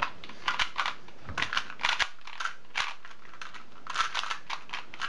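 2x2 speedcubes being turned fast during a timed solve: a rapid, irregular clatter of plastic clicks, several a second.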